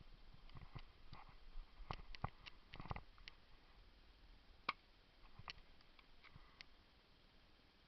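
Faint, irregular clicks and light knocks, a dozen or so, bunched in the first three seconds, with one sharper click about five seconds in.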